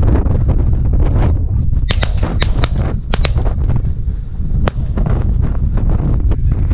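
Strong wind buffeting the microphone, with about six short, sharp cracks or clicks between about two and five seconds in.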